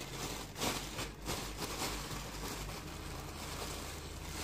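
Thin plastic bag rustling and crinkling as a hand works inside it, with a few sharper crackles in the first second or so, then a steadier rustle.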